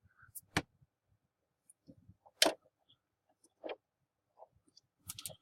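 A few separate small clicks and taps, spread out, from breadboard components and multimeter probe leads being handled as the circuit is broken open.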